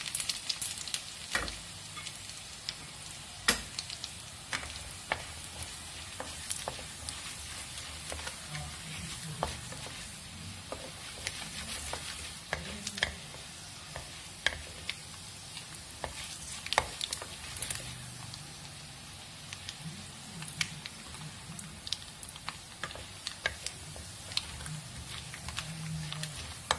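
Hot oil sizzling in a kadai as a tempering of dried red chillies, garlic, chana dal, urad dal, mustard and cumin seeds fries and is stirred with a spatula, with scattered sharp pops and crackles through the steady hiss.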